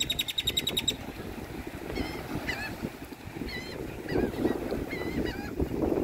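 Grackle calling from its perch: a fast, even rattle of clicks that ends about a second in, then a string of short, squeaky whistled notes, each bending up and down, repeated every half second or so.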